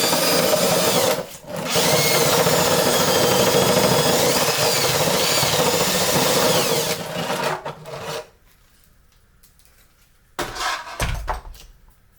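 Power drill running a 14 mm four-fluted bit through a 3D-printed plastic segment to clear the channel for a 15 mm copper rod. It stops briefly about a second in, then runs steadily with a wavering high whine from the bit cutting, and winds down about seven to eight seconds in. A short clatter of handling comes about ten seconds in.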